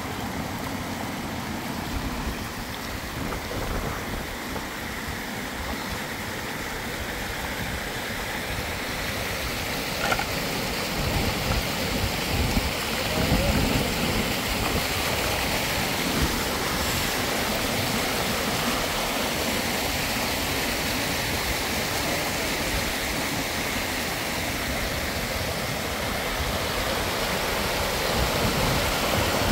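Muddy storm runoff rushing down a dirt slope: a steady rushing hiss of flowing water that grows louder about ten seconds in.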